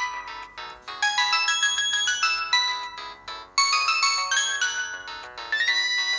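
Polyphonic ringtone of a Samsung GT-E1170 mobile phone playing: a melody of short, bright synthesized notes in a phrase that repeats every two seconds or so, changing to a busier pattern with a held high note near the end.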